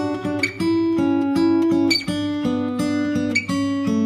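Background music: acoustic guitar playing a quick run of plucked notes.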